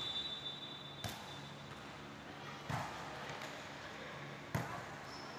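Three sharp hits of a volleyball by players' hands, spaced about 1.7 seconds apart. At the start, a referee's whistle blast is just dying away.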